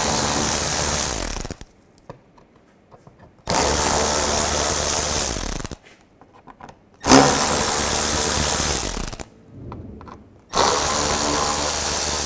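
Cordless electric ratchet with a T25 Torx bit spinning out the screws of a plastic underbody panel, in four runs of about two seconds each with short pauses between.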